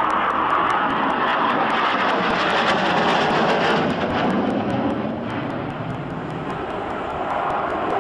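Harrier GR7's Rolls-Royce Pegasus turbofan, loud jet noise as it flies its display, easing a little after about four seconds and building again near the end.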